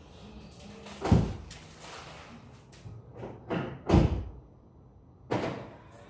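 A series of heavy, dull thumps: a loud one about a second in, two more close together around three and a half to four seconds, and a last one near the end, each with a short ringing tail, over a faint low background hum.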